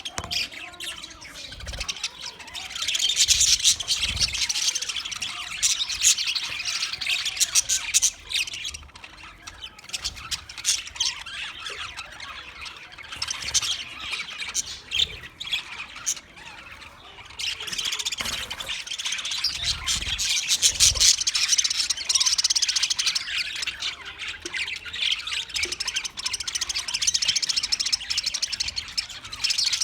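English budgie chirping and chattering, high-pitched and busy, in long runs of several seconds broken by short quieter spells.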